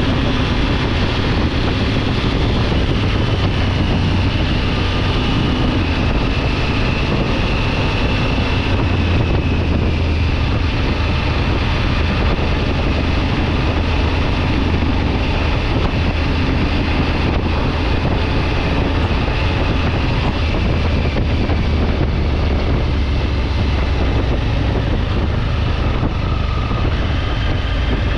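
Triumph Tiger 900 GT Pro motorcycle's three-cylinder engine running steadily on the move, mixed with wind noise on the microphone.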